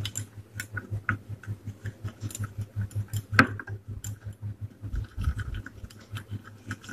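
Wire whisk beating a Milo, sugar and hot-water paste in a glass bowl, the wires clicking against the glass about four or five times a second, with one louder knock about three and a half seconds in.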